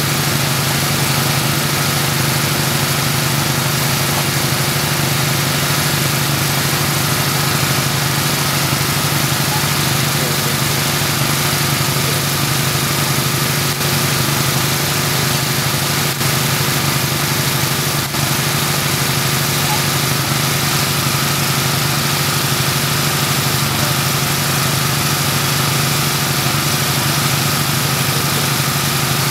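An engine running steadily at an even speed, a constant drone with no change in pitch.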